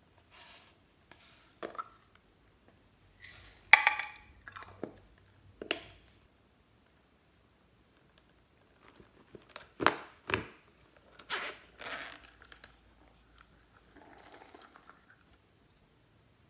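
Hands handling small plastic and silicone novelty containers: scattered clicks, knocks and rustles, loudest a little under four seconds in and again around ten seconds in, with a quiet pause between.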